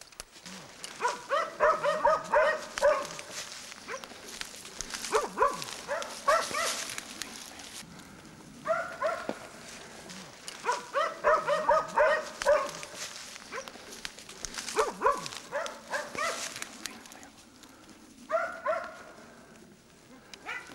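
Hunting dogs barking in rapid bursts every few seconds, baying at a wild boar they have found, with brush rustling close by.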